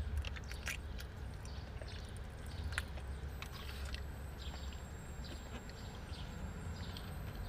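Close-up chewing and small wet mouth clicks from someone eating soft baked sweet potato, scattered irregularly over a steady low hum.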